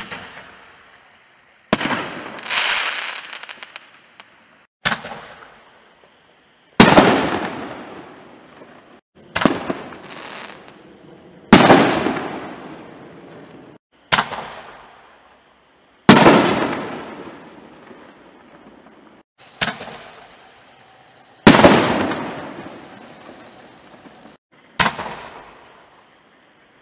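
Yellow Brick 'Total Destruction' 5-inch canister shells going off one after another. About a dozen sharp bangs come some two seconds apart, and each trails off in a rolling echo over a second or two.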